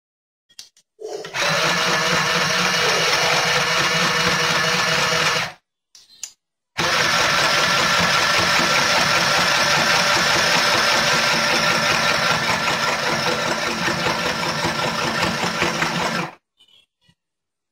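Small electric mini sewing machine running steadily as it stitches fabric, sewing a test seam to check the threading. It runs for about four seconds, stops briefly, then runs again for about nine seconds before stopping.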